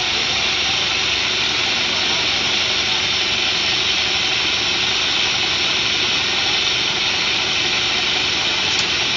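Diesel engine of a Mercedes-Benz city bus idling at close range: a steady, hissing drone that does not change.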